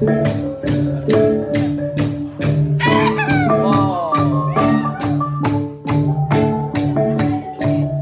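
Bahnar gong ensemble (Central Highlands cồng chiêng) playing: sustained, overlapping pitched gong tones over a steady, sharp beat of about three strokes a second.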